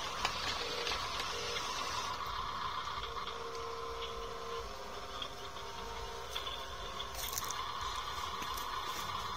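Small electric motors of a radio-controlled dump truck whining steadily as it manoeuvres and lowers its tipper bed, with a second, lower whine for about a second and a half near the middle.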